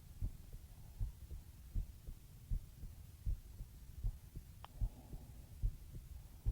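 Human heartbeat heard close-up: low, muffled thumps at a steady pace of a little over one beat a second, each beat a double thump.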